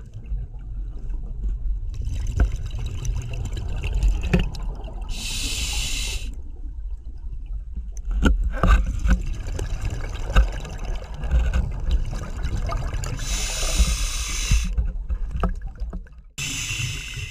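Scuba regulator breathing underwater: three long hisses of breath about eight seconds apart, over a steady low rumble of water with scattered clicks.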